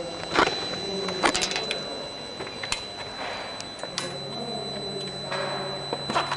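Automated production machine with a roller conveyor running: a steady high whine with scattered sharp mechanical clicks and clacks, and a low hum that comes in about four seconds in.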